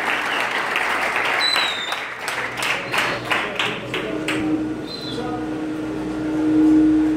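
A hall audience applauding, the dense clapping thinning to a few separate claps about halfway through. After that a steady low hum comes in and grows louder near the end.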